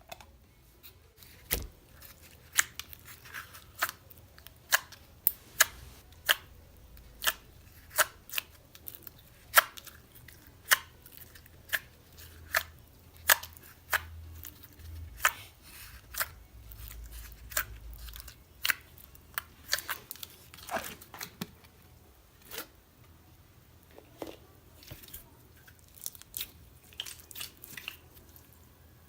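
Slime being mixed and kneaded by hand, giving sharp clicking pops at irregular intervals, about one a second.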